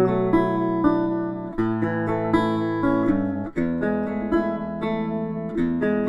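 Background music: acoustic guitar playing plucked chords, changing chord about every two seconds.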